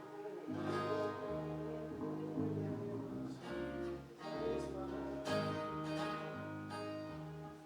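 Guitar intro: chords strummed steadily over low bass notes that change every beat or so, leading into a gospel song.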